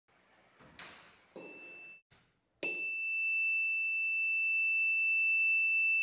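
Mini buzzer of a homemade door alarm sounding a steady high-pitched tone: a click about a second in, a short beep about a second and a half in, then a continuous tone from a little before halfway on. It is set off by the door opening, which pulls the insulating tab out of a clothes-peg switch so its two screw contacts close.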